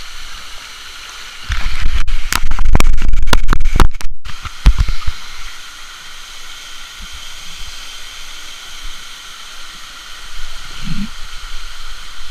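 Waterfall rushing steadily. For a few seconds near the start, loud low rumbling on the microphone covers it, with a couple of brief cut-outs.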